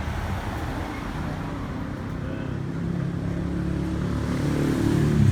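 A motor vehicle's engine running, its low hum growing steadily louder over the last few seconds.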